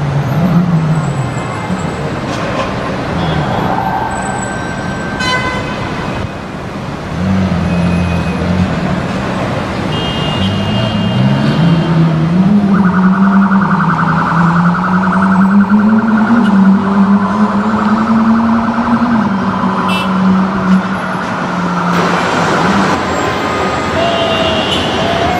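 Busy city road traffic: vehicle engines running, with a low hum that slowly drifts up and down in pitch. From about halfway, a steady buzzing electronic alarm tone sounds over it for about ten seconds, then stops.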